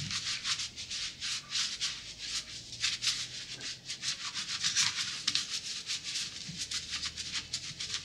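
Terry-cloth towel rubbing against hands in quick, uneven strokes, a few a second, with a dry scratchy sound.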